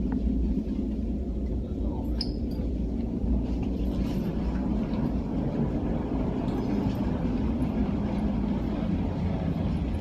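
Steady low rumble of a train, with a brief high squeak about two seconds in.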